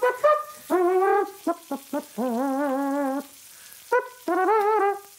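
A person imitating a small trumpet with the mouth, buzzing out a tune. It starts with a run of short notes, then a long held note with a wobbling pitch, a pause, and another wobbling held note near the end.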